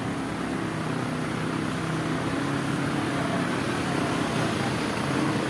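Steady outdoor street noise over floodwater: an even noise with a low engine hum running under it.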